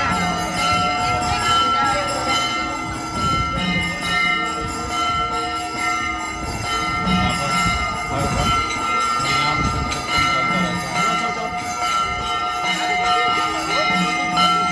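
Steady ringing tones held at a few fixed pitches, with jingling and the chatter of people moving past.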